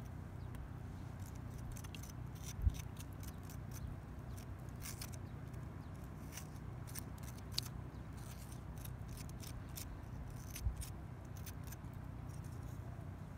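Small knife scraping and cutting out the flesh of a green tomato: a run of quiet short scrapes and clicks over a low steady rumble, with two dull thumps, about three seconds in and about eleven seconds in.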